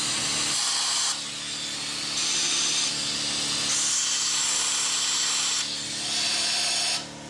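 Compressed-air blow gun hissing as it blows out the oil galleys of a 5.9 Cummins 12-valve engine block. The hiss changes in strength and tone several times as the nozzle moves from one passage to the next.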